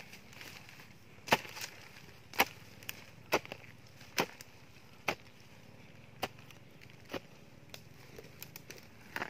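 A long-handled hoe chopping into soil to dig a planting hole: about eight sharp blows, roughly one a second, with a few lighter knocks between them.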